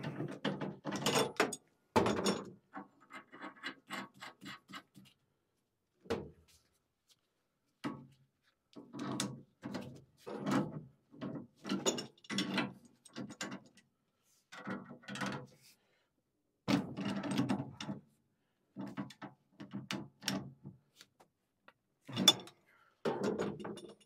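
Hand tools working on a furnace's gas valve piping: scattered bursts of metallic clicking and scraping, with a run of quick, even clicks a few seconds in.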